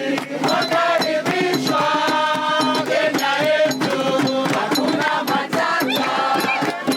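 Music with several singing voices over percussion with a steady beat.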